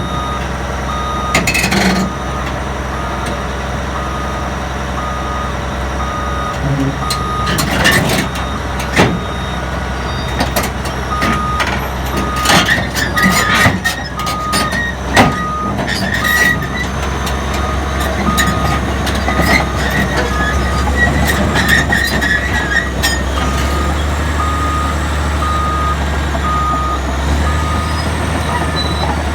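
Bulldozer's diesel engine running under a steadily repeating reversing-alarm beep, which pauses briefly a couple of times, with sharp metallic clanks from the tracks on steel, heaviest in the middle, as the machine is driven off its trailer.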